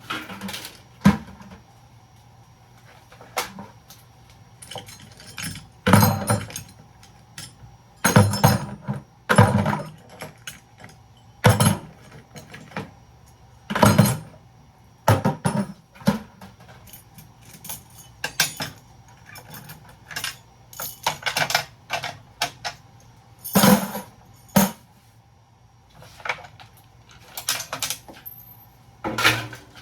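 Small metal scrap parts from a breaker-box teardown clanking and clattering in irregular bursts, about a dozen loud knocks with rattling between, over a faint steady hum.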